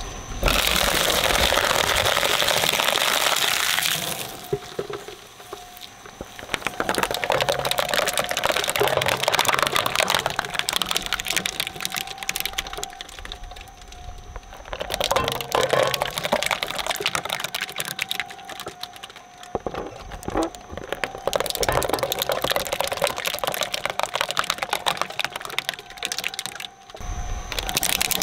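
Twin-shaft shredder with steel cutter blades chewing through rigid plastic pieces in rapid cracking and crunching snaps, over a steady motor hum. The crunching swells loud and dies back every few seconds as each new piece is bitten and torn apart.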